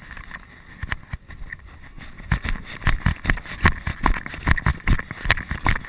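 Brisk footsteps and camera jostling as the handler hurries across grass behind a dog pulling on its lead, with wind buffeting the microphone. The thumps grow louder and faster about two seconds in, at roughly three a second.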